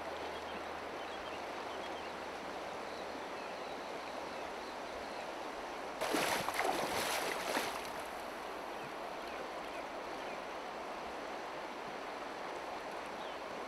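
Shallow river running steadily over stones. About six seconds in, a burst of splashing for a second or two as a wader strides through the shallows in waders.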